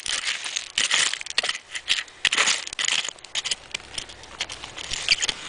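A hand digging tool scraping and raking through dry, glass-filled dirt, making a gritty crunching with many quick, sharp clicks and scrapes.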